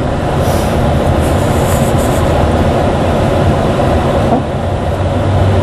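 Steady road noise inside a moving car: the engine and the tyres running on a wet, slushy road.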